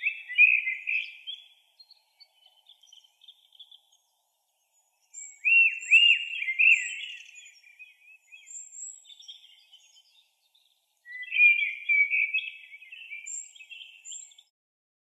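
Birds chirping and calling in three bouts: at the start, again after about five seconds and again after about eleven seconds. The calls are quick chirps and short whistled notes that rise and fall, with a few thin, very high notes between the bouts.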